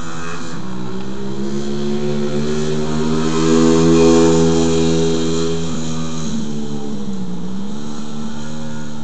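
SSR 110cc pit bike's single-cylinder four-stroke engine running as the bike rides by on the street, loudest about four seconds in. Its pitch drops between about six and seven seconds in, then picks up again.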